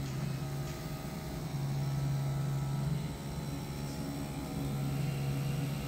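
Automatic CNC fabric cutting machine running as it cuts a thick stack of fabric held under vacuum: a steady mechanical hum that grows louder for a second or so at a time as the cutting head works.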